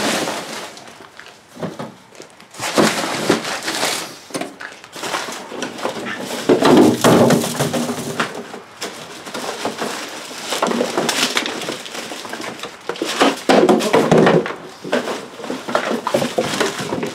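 Trash being crammed into a nearly full trash can: irregular crunching and rustling of boxes and packaging, with two heavier spells of crushing about seven and fourteen seconds in.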